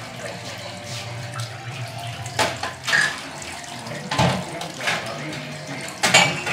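Tap running into a kitchen sink, with several sharp knocks and clatters from about halfway on.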